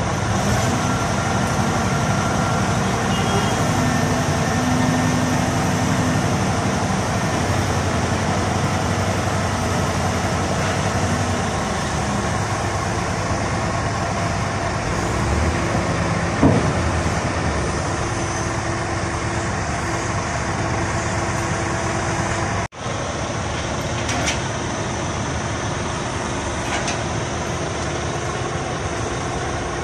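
Heavy diesel engine running steadily, its pitch changing about twelve seconds in, with a single sharp knock around the middle.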